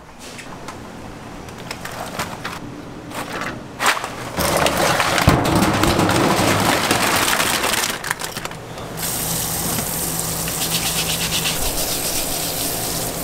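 A hand truck rolling in, then clams and mussels clattering in a stainless-steel sink as they are handled. From about nine seconds in, tap water runs steadily onto the shellfish while a brush scrubs the shells.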